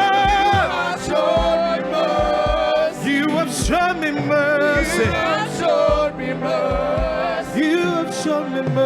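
Choir singing a gospel worship song, with instrumental backing.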